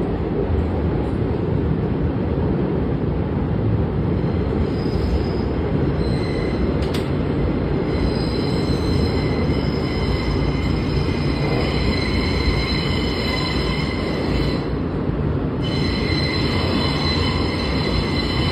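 Subway train running through a tunnel, heard from on board: a steady rumble of wheels on the track. From about four seconds in, high-pitched wheel squeal rides over the rumble; it breaks off for a moment near the end, then returns.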